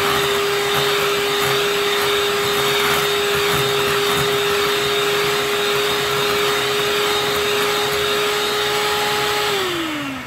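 Handheld electric mixer running at a steady speed, its beaters whipping liquid cake batter in a glass bowl, with a constant motor whine. Near the end the motor slows and stops, the whine falling in pitch.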